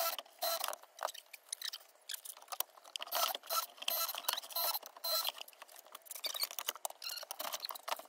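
Busy, irregular small clicks, scratches and rustles of hands handling tools and small parts while fitting a fuse box to a board.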